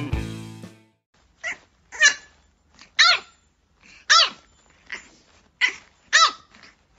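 Kitten mewing: a string of about eight short, high mews, each rising and falling in pitch, over about five seconds. Background music fades out during the first second.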